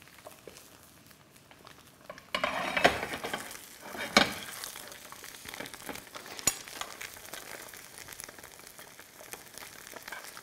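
Butter sizzling and foaming around tofu in a wrought-iron pan while it is basted with a metal spoon; the sizzle swells suddenly about two seconds in and stays louder, with a few sharp clinks of the spoon against the pan.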